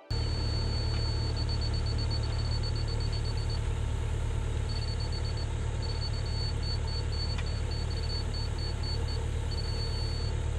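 Mini excavator's diesel engine idling steadily, over a high-pitched electronic beeping that comes and goes, partly as long steady tones and partly as runs of rapid beeps: a laser level receiver on a grade rod being held in the trench bottom to check depth.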